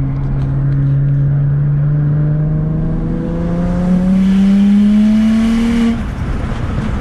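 BMW N54 inline-six with a single-turbo kit, heard from inside the cabin, pulling hard under full throttle. Its note rises steadily from about 2500 to 4500 rpm, with a rushing turbo and open-wastegate hiss building in the second half. The pull cuts off suddenly about six seconds in as the throttle is lifted.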